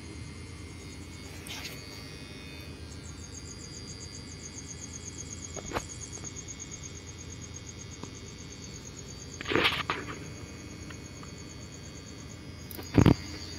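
Insects, likely crickets, chirping in a fast, even pulsing trill over a steady outdoor hiss. A few short knocks break in, the loudest a dull thump near the end.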